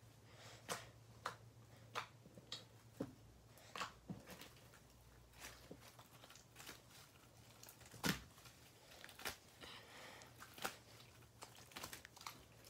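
White slime being kneaded and squeezed by hand, giving faint irregular small clicks and pops, the loudest about eight seconds in.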